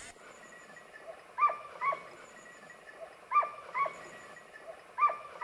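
A bird calling: six short calls that fall in pitch, given in three pairs about two seconds apart.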